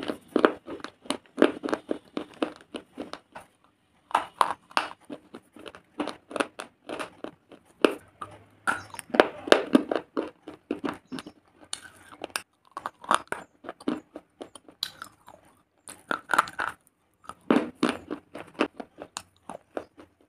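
A person chewing brittle pieces of grey stone: sharp crunches come in bursts of a second or more, with short pauses between.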